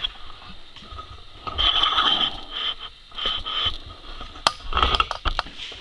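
Video camera's zoom lens motor whirring in three short spurts as the lens zooms in, with a few clicks near the end.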